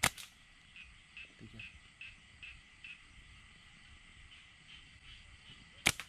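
Two sharp snaps of a slingshot being shot, one right at the start and one near the end. Between them, faint night insects chirp about two to three times a second.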